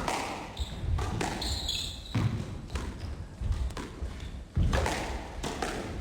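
Squash ball being struck by racquets and smacking against the court walls in a rally: a string of sharp hits about a second apart, each echoing briefly in the court.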